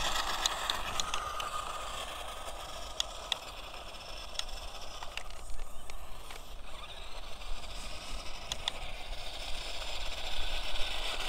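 Battery-powered 4x4 RC off-road car running at full throttle: the motor and tyres on the ground fade as it drives off, then grow louder again in the second half, with a few sharp clicks.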